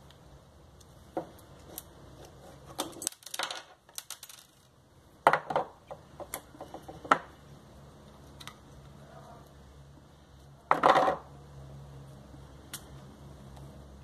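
Screwdriver prying at the hard plastic end cap of a washing-machine suspension damper: scattered clicks and short scrapes of metal on plastic, with a louder, longer scrape about eleven seconds in. By the end the cap has come off the damper tube.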